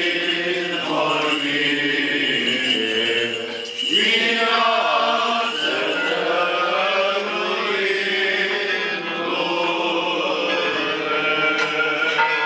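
Orthodox liturgical chant sung by a group of voices in sustained, stepwise phrases, with a brief break about four seconds in before the singing resumes.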